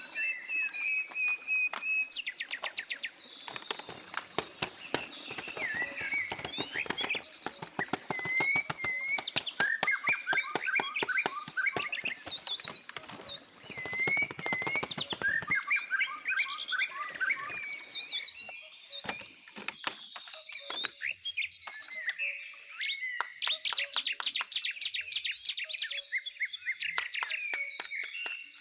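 Birds chirping and twittering: many short, quick, gliding calls and rapid trills, repeated throughout.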